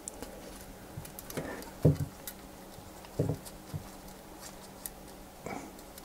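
Handling noise of nitrile-gloved fingers on an M.2 SSD and its PCIe adapter card while fitting the small retaining nut: a few soft knocks and faint clicks and rubs.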